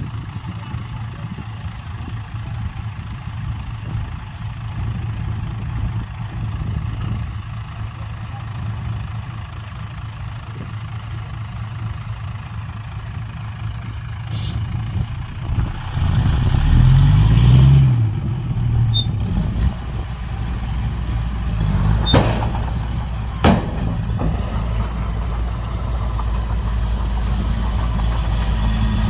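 Heavy diesel engine idling steadily, then revving up and back down a little past halfway through. Two sharp knocks follow a few seconds later.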